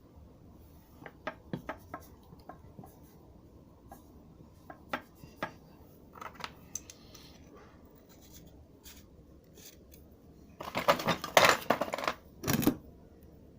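Hand tools and metal steering-rack parts being handled: scattered light metallic clicks and taps, then a louder stretch of scraping and rattling about eleven seconds in, and one more short rattle just after it.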